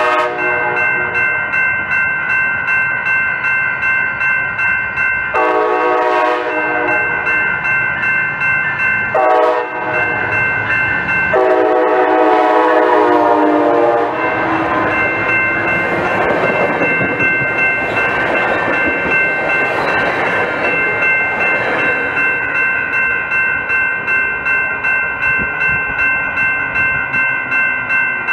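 COASTER commuter train's locomotive horn sounding the crossing pattern: the tail of one blast at the start, then a long blast, a short one and another long one, as the train approaches; then its bi-level cars rumbling past on the rails. A crossing warning bell rings in a steady rhythm throughout.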